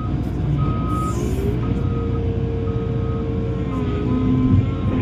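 Heavy construction machine's diesel engine running, with a reversing alarm beeping about once a second over it.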